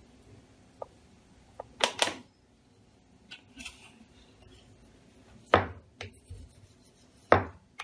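Sharp knocks and small clicks of a wooden rolling pin and hands working dough on a marble rolling board: a double knock about two seconds in, and two louder knocks about halfway and near the end.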